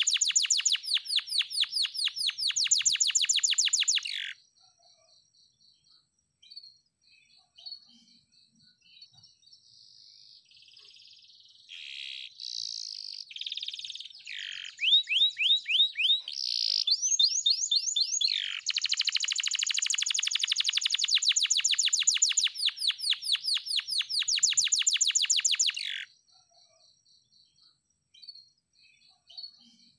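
Domestic canary singing: a fast rolling trill, then a pause, then a run of varied chirps and whistled phrases, then a long fast trill lasting about seven seconds. In the pauses, a faint steady pulsing chirr.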